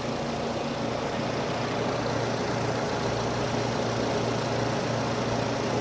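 2008 Nissan Versa's four-cylinder engine idling steadily with a loud purr and a slight whine, a noise the owner thinks could be a pulley starting to go bad.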